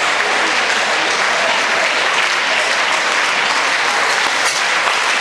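Crowd of spectators applauding steadily.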